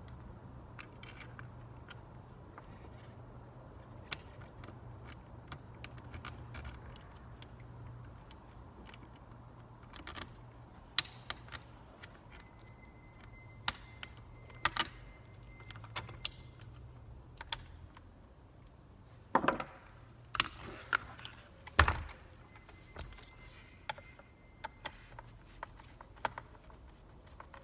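Plastic footrest cover being worked onto a kids' tricycle: scattered clicks, taps and knocks of hard plastic parts, sparse at first, then busier and louder in the second half, over a low steady hum.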